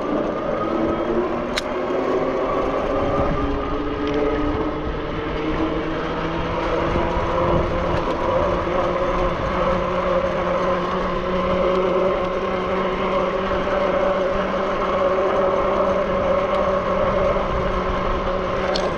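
Zugo electric bike's motor whining, rising in pitch as the bike picks up speed over the first couple of seconds, then holding a steady pitch while riding, over a steady rushing noise.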